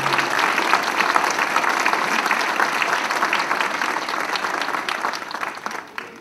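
Theatre audience applauding as the band's final held chord cuts off at the start; the clapping thins out and fades near the end.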